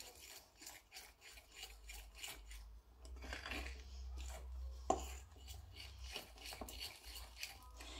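A metal fork stirring and scraping egg into flour in a ceramic bowl, with faint quick strokes about three a second and one sharper clink of fork on bowl about five seconds in. This is the egg being worked into the flour, the first stage of a frying batter.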